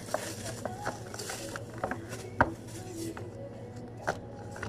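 Food-prep handling sounds: a clear plastic bag rustling and light clicks and knocks on the counter, with one sharp knock about halfway through, over a steady low hum.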